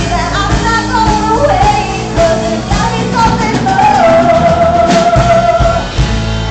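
Live bar band playing an upbeat song, with a woman singing over electric guitars, bass and drums; the voice holds one long note for nearly two seconds in the second half.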